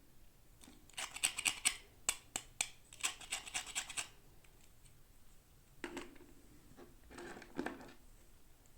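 Toy doll packaging being handled and scratched: two quick runs of dry, clicky scratching in the first half, then two shorter, duller rustles near the end.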